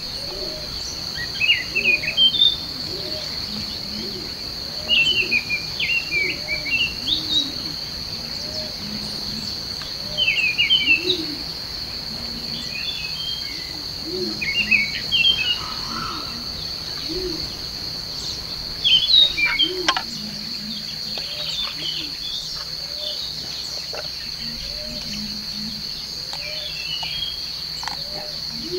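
Tropical forest ambience: a steady high insect drone of crickets or cicadas, with a bird's chirping song phrases recurring every few seconds and a low call repeating about once a second underneath.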